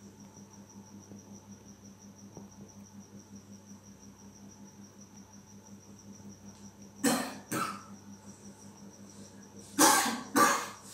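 A cricket trilling steadily and high-pitched over a low electrical hum. About seven seconds in and again near the end, a person coughs twice in quick succession, the loudest sounds in the clip.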